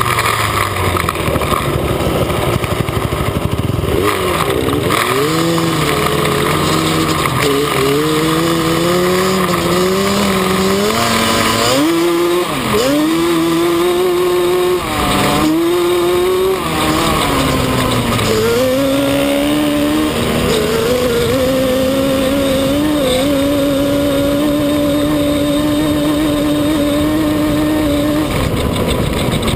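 Yamaha Banshee's 350 cc twin-cylinder two-stroke engine heard from a camera mounted on the quad while riding: it revs up and drops back again and again as the rider shifts through the gears, then holds a steady high pitch for several seconds before backing off near the end. Wind rushes over the microphone throughout.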